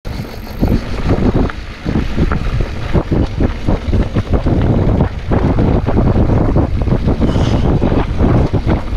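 Mountain bike riding down a dirt trail, heard from a camera mounted on the bike: wind buffeting the microphone, tyres rolling over dirt and dry leaves, and the bike rattling over bumps in many quick knocks.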